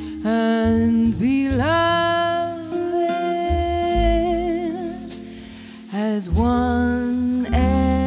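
Slow jazz ballad: a woman's voice sings long held notes that slide up into pitch and waver with vibrato, over classical guitar and double bass. The music thins out briefly near the middle before the full sound returns.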